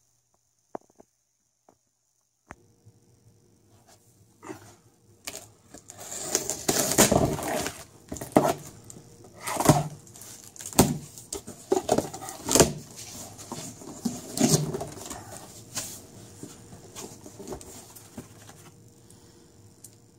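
Packing tape being ripped off the seam of a large cardboard box: after a couple of seconds of near silence, a series of loud tearing strokes, with the rustle and scrape of the cardboard flaps being opened, growing quieter near the end.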